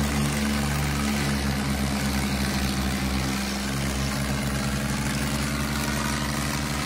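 John Deere tractor's diesel engine running steadily with an even low beat.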